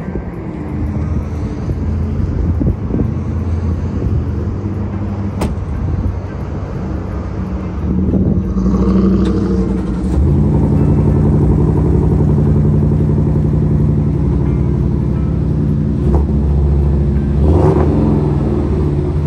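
A pickup's 5.0 Coyote V8 starts about eight seconds in and then idles steadily, over a lower engine hum. There is a sharp click about five seconds in, and a brief swell in the engine near the end.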